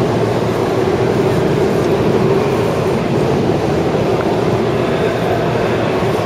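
Electric commuter train running slowly over the station tracks: a steady rumble with a faint motor whine.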